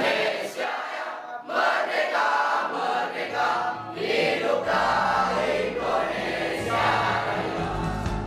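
Many voices singing together as a choir, with a low bass accompaniment that comes in about halfway and grows louder near the end.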